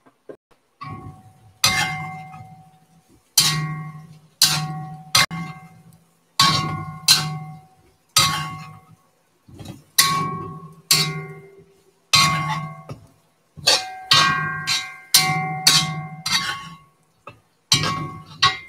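A metal utensil knocking against a cast iron wok about twenty times at an irregular pace, roughly once a second, while stirring a stir fry. Each knock rings briefly with the same bell-like tones and fades within about a second.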